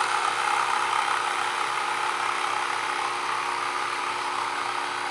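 Small electric motor of a 1/16 RC Schwimmwagen turning its rear propeller under throttle, a steady whine that slowly gets quieter.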